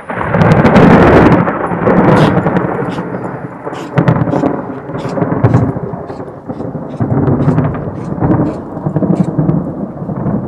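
Loud rolling thunder from a nearby lightning strike. It peaks within the first second and a half, then rumbles on in repeated swells.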